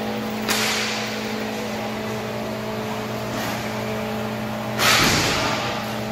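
Impacts during an inline hockey game, over a steady electrical hum in the arena: a sharp clack about half a second in, and a louder, longer bang about five seconds in.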